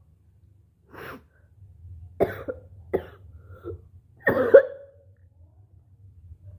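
A person coughing and hawking to bring up thick phlegm. There is a weaker cough about a second in, two sharp coughs around two and three seconds in, and the loudest, longest cough just past four seconds.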